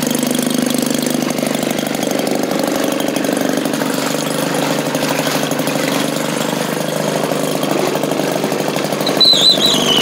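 Small gasoline engine of a Maytag washing machine running steadily, driving the agitator through its belt, with water churning in the tub. Near the end a brief high wavering squeal slides down in pitch.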